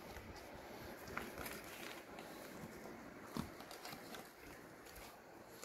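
Quiet room tone with a few faint, soft clicks and rustles, a little over a second in and again past three seconds.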